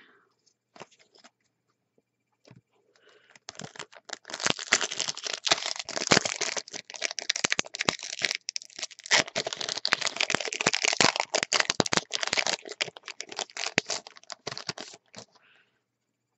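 A Yu-Gi-Oh! booster pack wrapper crinkling and being torn open by hand. A dense run of crackles and rips starts a few seconds in and lasts about twelve seconds.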